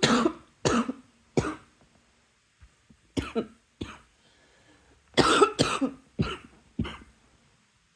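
A person coughing in short fits: three coughs, a pause, two more coughs, then a quick run of coughs followed by two last single coughs.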